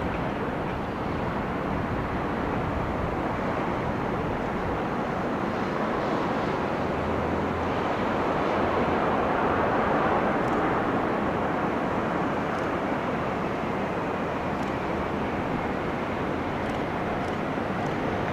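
Airplane engine and airflow noise: a steady rushing drone that grows a little louder around nine to ten seconds in.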